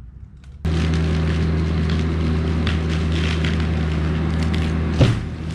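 Engine running at a steady pitch, cutting in abruptly about half a second in, with scattered crackling over it and a single sharp knock near the end.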